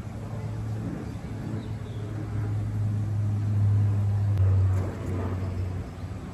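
A low engine rumble with a steady hum swells to a peak about four to five seconds in and then fades, like a motor vehicle passing by.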